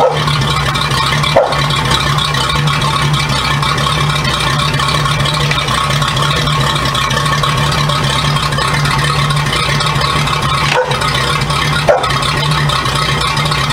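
A motor running steadily with a hum and rattling, and a few brief falling squeaks, one at the start, one a little over a second in and two near the end.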